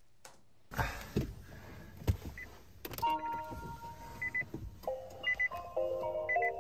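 Nissan Leaf being switched on from inside the cabin: a few knocks and a click, then held electronic chime notes at several pitches and a short high beep that repeats about once a second as the dashboard lights up.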